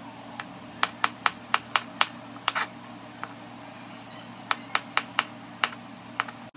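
Kitchen knife chopping banana on a plastic cutting board: sharp taps of the blade on the board in two quick runs of about four a second, with a few single taps between, over a low steady hum.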